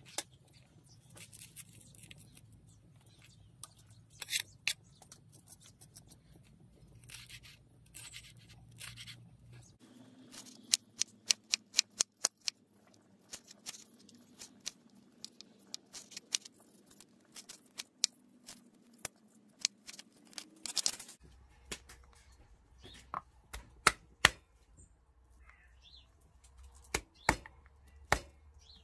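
Kitchen knife chopping on a wooden cutting board, slicing red chilli and ginger: irregular knocks of the blade against the board, with a quick run of louder chops around the middle.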